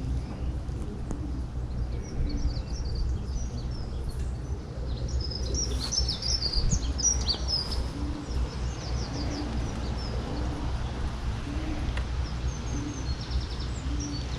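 Small songbirds chirping and singing in short phrases, busiest about halfway through and again near the end, over a steady low rumble.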